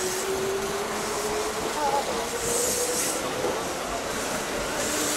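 Kintetsu 15200 series 'Aozora II' electric train moving along the station platform. Its motor whine rises steadily in pitch over the first few seconds as it speeds up, over running noise, with brief hissing swells about every two and a half seconds.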